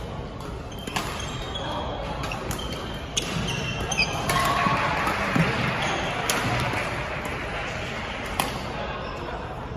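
Badminton doubles rally: sharp racket-on-shuttlecock hits about once every second or two, with short shoe squeaks on the court floor in the first few seconds. A background of crowd chatter gets louder midway.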